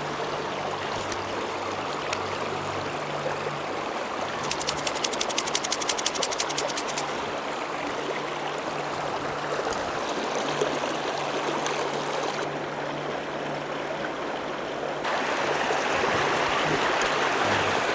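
Mountain stream running steadily over rocks. About four seconds in, a rapid run of clicks, roughly a dozen a second, lasts for two to three seconds.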